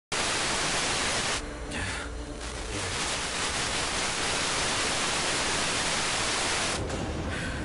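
FM radio receiver hiss with no signal. It is broken twice, about a second and a half in and again near the end, by brief meteor-scatter pings: the hiss drops out for about a second and a distant FM broadcast station's audio comes through faintly.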